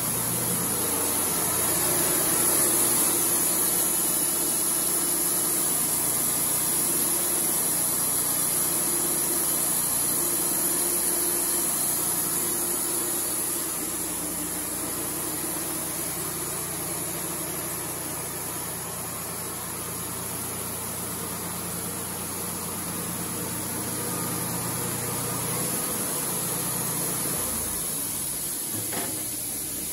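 Woodmizer LT35 portable band sawmill running, a steady engine drone under a constant high hiss from the band saw. Near the end the low engine sound drops away.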